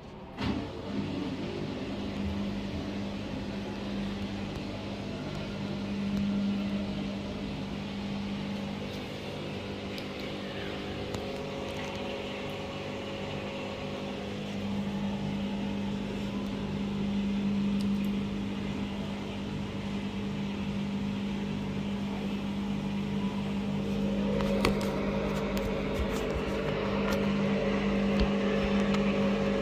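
Empty front-loading washing machine spinning its drum: a steady motor hum that swells and fades every five or six seconds, growing a little louder with added higher tones about 24 seconds in as the spin builds. A short knock about half a second in.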